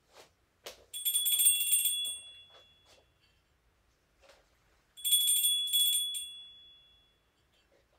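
Sanctus bells (altar bells) rung twice, about a second in and again about five seconds in, each a quick cluster of strikes that rings on and fades over a couple of seconds. It marks the elevation of the consecrated host after the words of institution.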